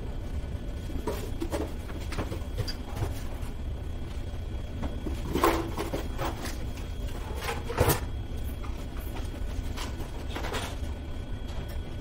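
A person moving about and handling things: scattered knocks and rustles, the two loudest about five and a half and eight seconds in, over a steady low rumble.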